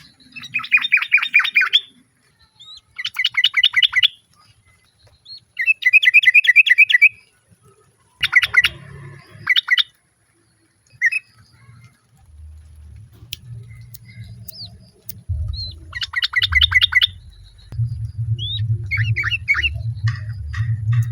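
Yellow-vented bulbul calling: five phrases of rapid chattering notes, each about a second and a half long, with short chirps from other birds between and after. A low rumble runs underneath from about halfway through.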